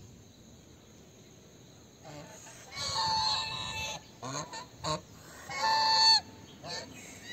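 White domestic geese honking. A long honk comes about three seconds in, then several short calls, then a louder long honk near six seconds and a few short calls near the end.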